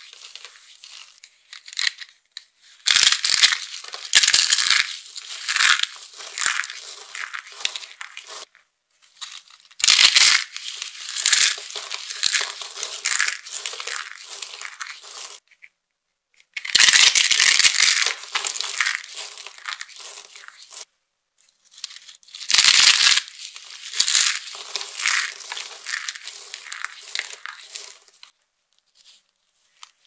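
Dry carved soap being crushed and crumbled in the hands, thin soap cones and shavings breaking up with crisp crackling and crunching. It comes in four bursts of several seconds each, with short pauses between.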